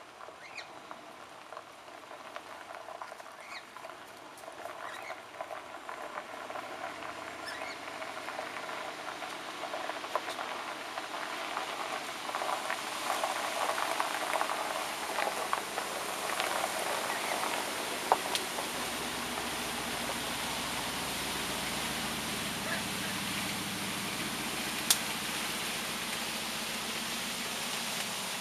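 Crackling and rustling of a large bush being dragged out by a pickup truck, growing louder as it comes closer, with two sharp snaps. A low rumble from the truck joins about two-thirds of the way through.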